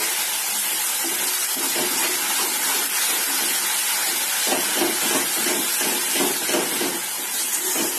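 Onion and spice masala sizzling in hot oil in a metal kadhai, a steady hiss as the masala is fried. It is stirred with a steel spoon, with scraping strokes against the pan in the second half.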